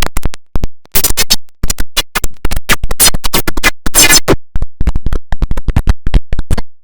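Music chopped into rapid, sharp stuttering fragments, several a second with brief gaps between them, in the manner of turntable scratching or a glitch edit.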